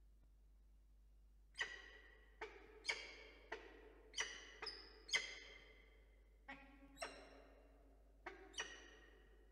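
Peregrine falcon giving a series of about eleven short, sharp calls at an uneven pace during feeding at the nest, starting about a second and a half in.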